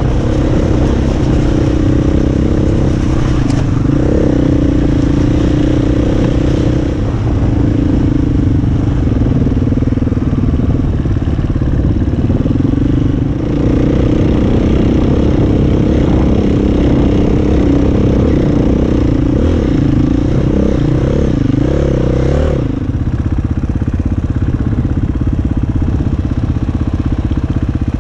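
KTM dirt bike engine running while riding, its pitch rising and falling with the throttle. Near the end it changes abruptly to a steady, even note.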